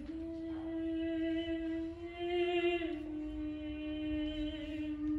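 Unaccompanied soprano voice holding one long sung note that steps slightly down in pitch about three seconds in and carries on.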